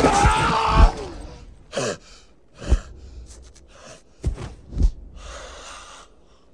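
A man's strained, pained cry in the first second, then a few ragged gasps for breath spaced about a second apart.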